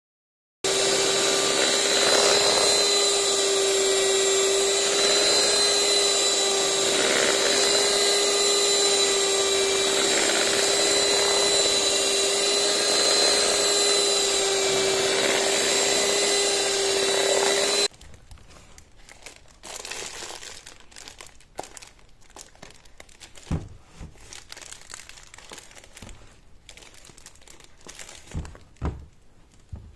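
Electric hand mixer running steadily at one speed, its beaters whipping thick body butter in a stainless steel bowl, with a steady hum and a high whine. It cuts off a little over halfway through, followed by quieter scraping and plastic rustling as the whipped butter is spooned into a plastic piping bag.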